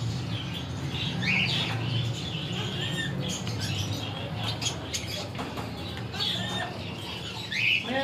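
Parrots giving short rising chirps and whistles, several scattered through, over a steady low hum.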